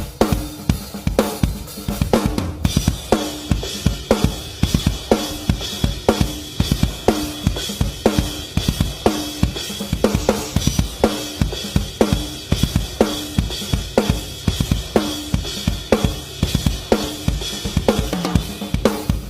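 Heavy metal drum kit playing a fast, driving beat with bass drum, snare and cymbals.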